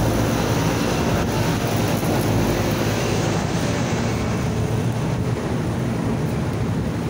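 Rooftop air-cooled condensing units running: a steady hum of condenser fans and compressors, easing slightly about halfway through.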